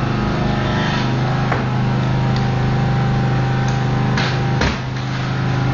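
Steady engine drone of the power unit driving hydraulic rescue tools, with two sharp cracks about four seconds in as the tool works on the car.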